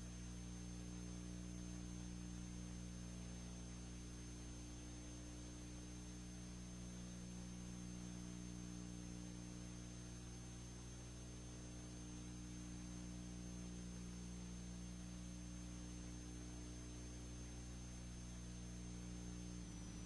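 Steady electrical hum with even hiss and a thin high whine, with no other sound on an otherwise silent soundtrack; the hum shifts in pitch slightly near the end.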